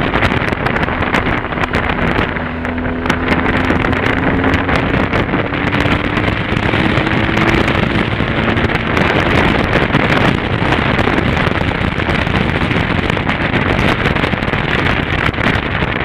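Heavy wind buffeting on a motorcycle-mounted camera's microphone while riding a BMW R 1200 GS Adventure, its boxer-twin engine running underneath. A faint engine note rises slowly a few seconds in as the bike speeds up.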